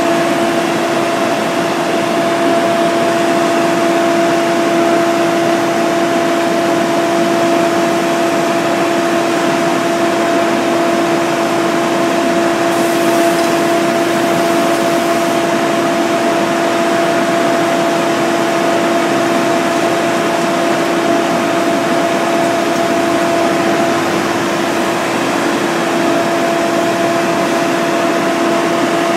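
Engine-driven fire equipment running steadily: a constant droning hum over an even hiss, with no change in speed.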